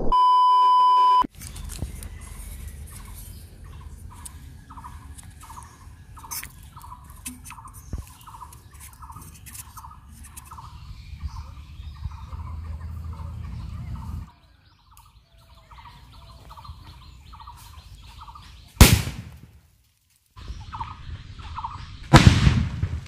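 A steady test-tone beep for about a second, then a bird calling in short repeated notes about twice a second. Near the end come two loud bangs about three seconds apart: a sutli bomb, an Indian jute-twine-wrapped firecracker, exploding under an upturned aluminium bottle.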